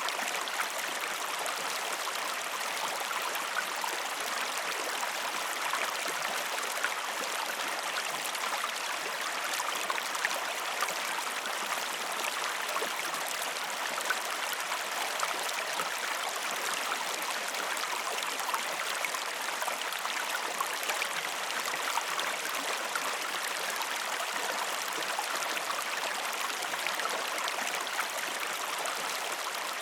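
Stream water running steadily: an even rushing sound with fine splashes throughout.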